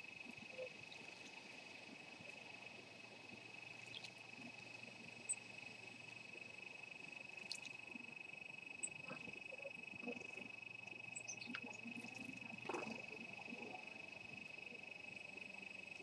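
Small garden birds, great tits, bathing in a shallow pond: faint small splashes and wing flutters every second or two.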